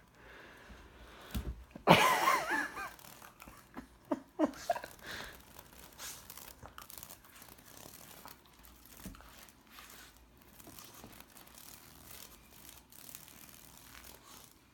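A dog mouthing and chewing a live cicada, with crinkly crunching and scattered small clicks. A brief, loud, wavering squeal comes about two seconds in, with shorter squeaks near four seconds.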